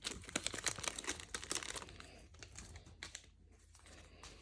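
The foil wrapper of a Magic: The Gathering collector booster pack crinkling and tearing as it is opened. Dense crackling for about two seconds, then only a few scattered crackles and clicks.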